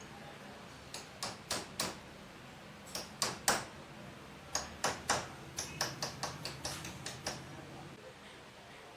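Sharp taps and knocks from work on a hydraulic jack. They come in small groups of three or four, then a quicker run of about nine near the middle, and stop about two seconds before the end.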